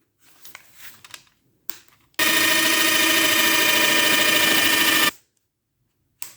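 Warrior 18-volt cordless drill driver running unloaded for about three seconds, a steady motor whine at constant speed that starts and stops abruptly. A few faint handling clicks come before it, and another click near the end.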